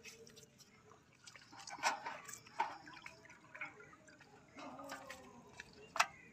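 Lemon juice dripping and wet hand sounds as a lemon is squeezed over whole scored fish on a steel plate, with a sharp tap against the plate near the end.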